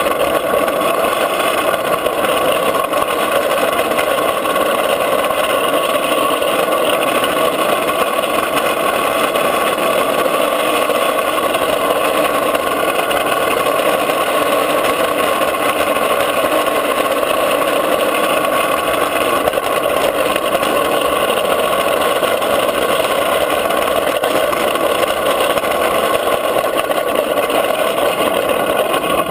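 Drift trike coasting fast downhill on asphalt: a steady rushing roar of its hard plastic rear wheels rolling on the road, mixed with wind noise.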